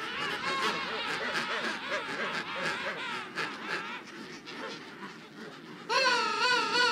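King penguin colony calling: many birds' wavering calls overlap in a continuous din. About six seconds in, one loud, clear call with a quavering, warbling pitch rises above the rest.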